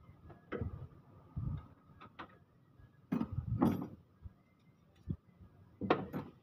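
Hand tools and metal parts clinking and knocking against the engine while the timing belt cover of a 2L engine is being worked loose. Irregular single knocks, with a louder cluster about three seconds in and another near the end.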